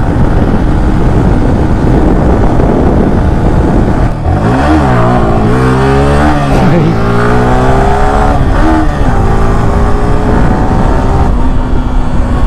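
Heavy wind rush over the helmet camera's microphone with a Yamaha R15 V4's single-cylinder engine running at highway speed. About four seconds in, the engine note drops and climbs several times through gear changes, then settles.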